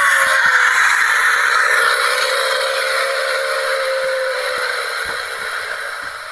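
A 4x4 truck's diesel engine working hard through deep mud, with a hissing wash of noise and a whine that falls slowly in pitch. The sound fades gradually as the truck moves away.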